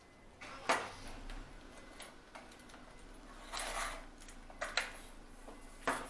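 A few light clicks and knocks of small drawing things handled on the table: a sharp click under a second in, a short scraping rustle past the middle, then quick clicks near the end.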